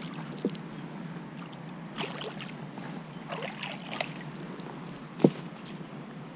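Water splashing as a small pike thrashes at the surface and a landing net is dipped and lifted out of the lake, with bursts of splashing and dripping about two seconds in and again around three to four seconds in. A single sharp knock, the loudest sound, comes about five seconds in as the net is handled over the wooden jetty.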